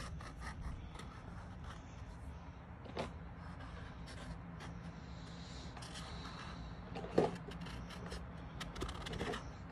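Red marker tip tapping and scratching on paper, making many faint irregular clicks over a steady low hum, with one louder knock about seven seconds in.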